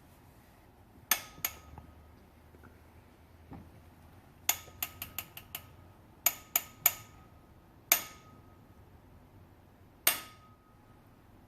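Sharp metallic clinks of hand tools, each ringing briefly, about a dozen in irregular groups with a quick run of five around the middle, while cylinder head bolts are tightened to angle.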